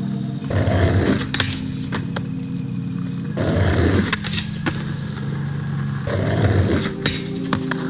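Skateboard rolling on pavement, with several sharp clacks of the board.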